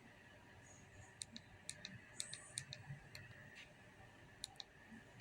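Near silence with a scattering of faint, sharp, irregular clicks.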